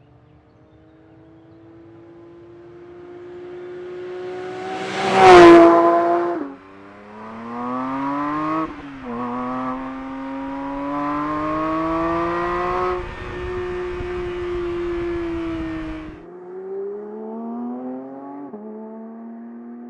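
Porsche 992 GT3 Touring's naturally aspirated 4.0-litre flat-six accelerating. The engine note climbs to a loud peak about five seconds in, then pulls up again and again, the pitch dropping briefly at each gear change.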